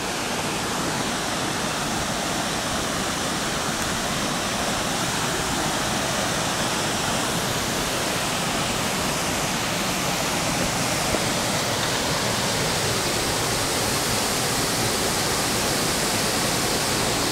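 A waterfall pouring into a rocky river pool: a steady rush of falling water, growing a little louder toward the end.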